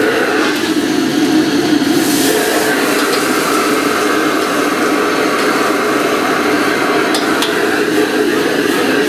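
High-pressure gas wok burners of a Chinese restaurant wok range giving a steady rushing noise while vegetables are stir-fried, with a few sharp metal clanks from wok and ladle, about two seconds in and again near the end.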